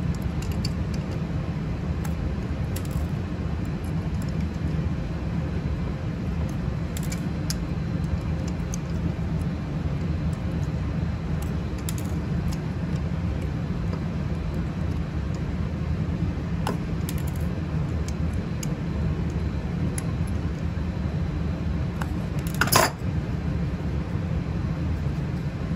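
Scattered small metal clicks and clinks of steel pliers and thin stainless steel shims against a threaded stainless steel sensor housing, over a steady low hum, with one louder metal clatter near the end.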